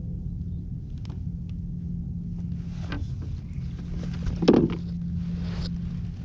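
Small clicks and knocks of hands baiting a hook with an anchovy and handling a fishing rod on a plastic kayak, with a louder low thump about four and a half seconds in and a brief rush as the baited rig is cast near the end. A steady low hum runs underneath.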